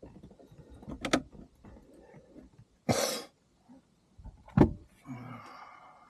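Knocks and clatter of paramotor frame parts being handled and fitted together, with a sharp knock about a second in, a short rustle about three seconds in, and the loudest knock about four and a half seconds in.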